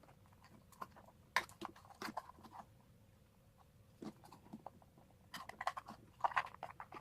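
Light clicks and knocks of a small plastic gas-water-heater ignition controller being handled while someone works at prying its case open, in two bursts: one about a second in and another about five seconds in.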